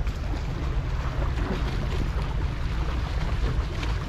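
Wind buffeting the microphone in a steady low rumble, over the wash of ocean waves.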